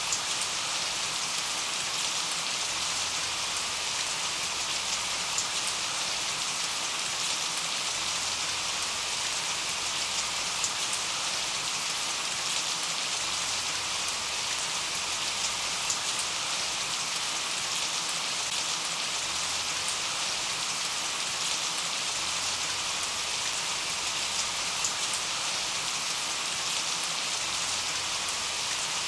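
Steady rain falling on a surface: an even hiss with scattered small drop ticks.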